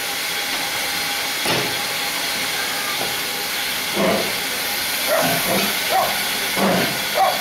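Steam locomotive blowing off steam: a steady hiss from the standing engine.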